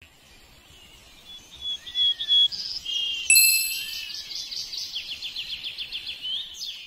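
Small birds chirping and trilling in short high notes, with a bright bell-like ding a little over three seconds in, the loudest moment. A fast run of rapid chirps follows.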